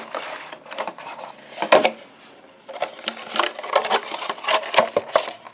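Unboxing handling of a portable hard drive's packaging: a quick run of rustles, clicks and taps as the contents are pulled out and handled.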